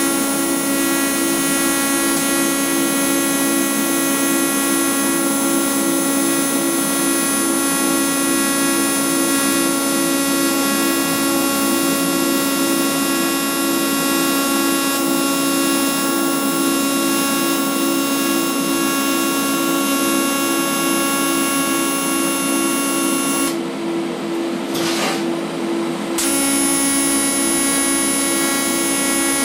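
TIG welding arc on stainless steel sheet, buzzing steadily with a high hiss. The buzz stops for about two and a half seconds roughly three-quarters of the way through, then the arc is struck again.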